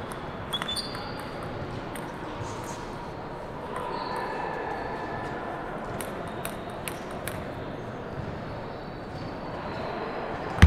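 Table tennis ball tapped lightly several times, with sharp faint clicks in the echoing hall. Right at the end comes one sharp, loud hit as the serve is struck.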